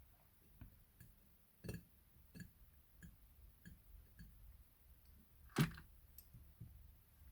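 Scattered light clicks and taps of hands and small tools handling polymer clay, with one louder knock about five and a half seconds in.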